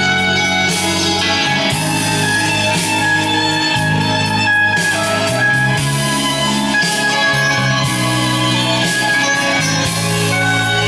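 Guitar-led music playing at a steady level.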